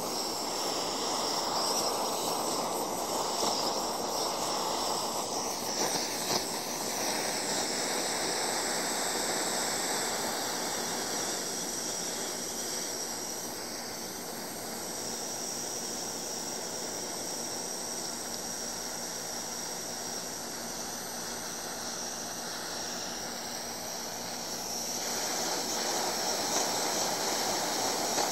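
Gas blow torch burning with a steady rushing hiss as its flame plays on a steel ball; the hiss drops a little in level through the middle and rises again near the end.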